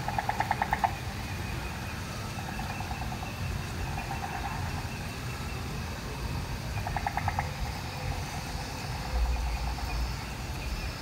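Night ambient sound of creature and insect calls: a rapid pulsing trill of about ten pulses a second at the start and again about seven seconds in, with softer chirps between and a steady high insect-like drone. A low rumble runs underneath and swells about nine seconds in.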